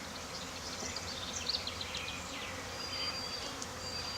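Swarm of honey bees buzzing steadily in the air, the dense hum of many bees just shaken out of a package around the hive.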